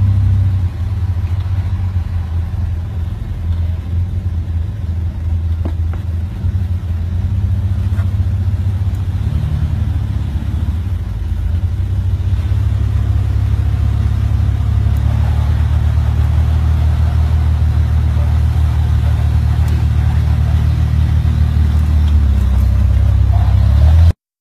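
Jeep engine running under load with a deep, steady rumble as it crawls up rock ledges, growing louder from about halfway through.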